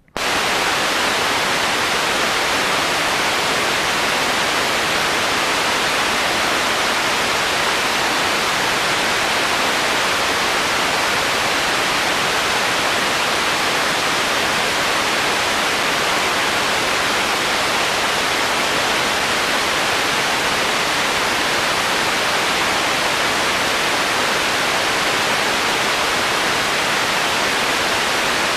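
Loud, steady hiss of static from an analog FPV video receiver that has lost the drone's video signal, cutting in suddenly.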